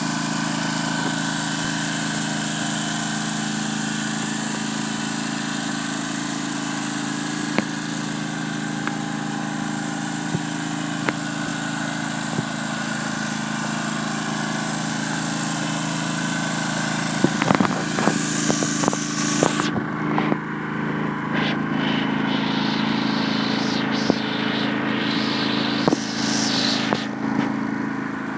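John Deere LT166 riding lawn mower's engine running steadily. About two-thirds of the way in there is a run of clicks and knocks, and the higher hiss falls away after them while the engine note carries on.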